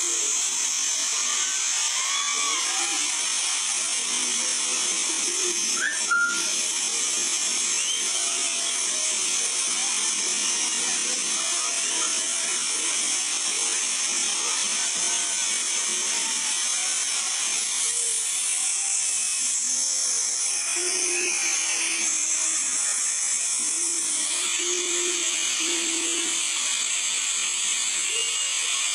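Heavy rain falling in a steady high hiss, with one brief sharp click about six seconds in.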